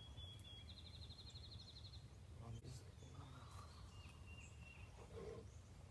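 Near silence in the woods with faint small songbirds: a fast high trill about a second in, then a few thin whistled notes. A low steady rumble runs underneath.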